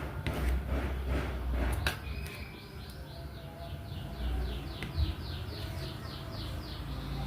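A bird calling in a fast, even series of short falling high notes, about three or four a second for several seconds, over a low rumble and a few sharp clicks near the start.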